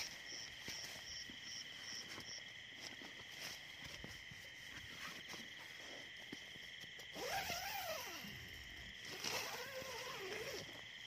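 Night insect chorus of crickets and similar insects, a steady high trilling with a pulsing chirp over the first couple of seconds. Near the end, two louder drawn-out calls rise and fall in pitch.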